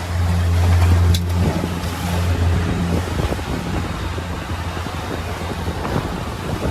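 A boat's engine running with a steady low hum, louder for the first second and a half, under a rush of wind and water.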